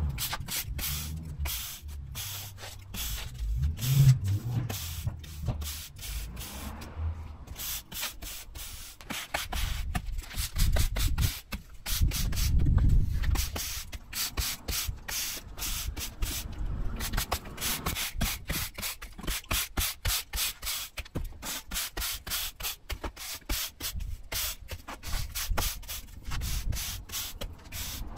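Stiff broom sweeping sand back and forth over block paving to fill the joints, a steady run of quick, irregular scraping strokes, about two or three a second. Low rumbles come in a few seconds in and again around the middle.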